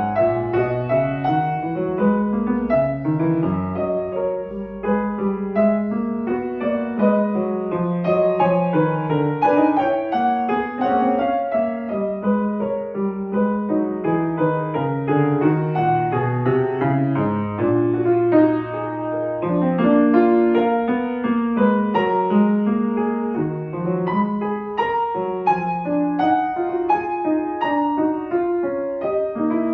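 Solo classical piano played on a Fazioli grand piano: fast, continuous runs of many notes, with one low note held for about two seconds just past the middle.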